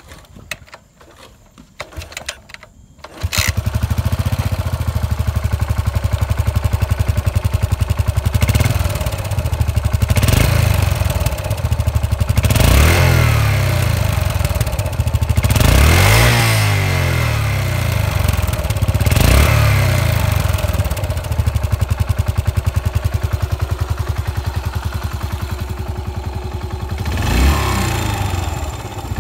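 A 2016 Yamaha SR400's air-cooled single-cylinder engine being kick-started: a few knocks of the kick starter, then it catches a little over three seconds in and idles with an even, low thudding beat. The throttle is blipped about five times, the revs rising and dropping back to idle each time.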